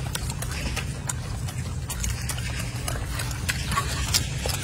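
Golden snub-nosed monkeys feeding: irregular small clicks and rustles of leaves and fruit being handled and chewed, over a steady low rumble.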